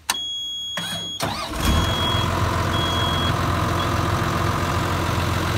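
Caterpillar D5 dozer's diesel engine starting. A high steady buzz sounds for about a second, then the engine catches about a second and a half in and settles into a steady idle, with two short high beeps just after it starts.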